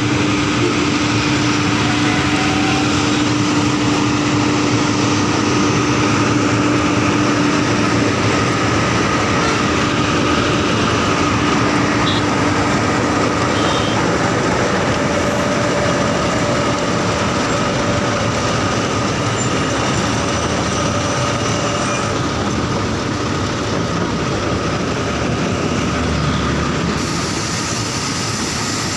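Road-repair machine running steadily: continuous heavy machinery noise with a steady hum whose pitch changes about halfway through.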